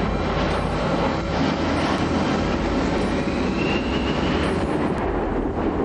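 Jet engines of a low-flying Airbus A320 airliner, a loud steady rumble with a whine that rises for about a second and a half in the middle as the engines spool up.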